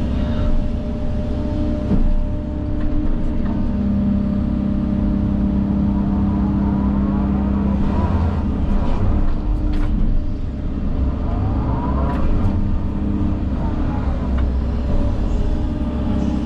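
Engine of a heavy earth-moving machine running steadily under load, with whines that rise and fall a few times as it works.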